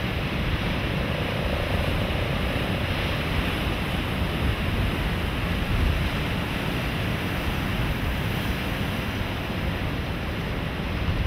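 Sea waves and surf washing steadily, with wind rumbling on the microphone. A faint steady hum rises above it for a couple of seconds about a second in.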